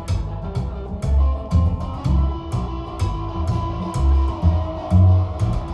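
Live rock band playing an instrumental passage: electric guitar and bass guitar over drums, with a steady beat of about two hits a second.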